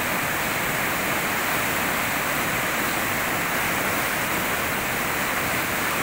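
Swift, turbulent river rapid rushing steadily, its white water churning over the rocks of the riverbed in an even, unbroken noise.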